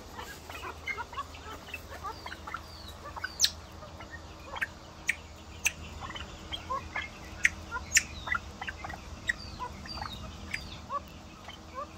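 Golden pheasants in a pen calling: many short chirps and clucks overlap throughout, with sharp, loud chips now and then, the loudest about three and a half and eight seconds in.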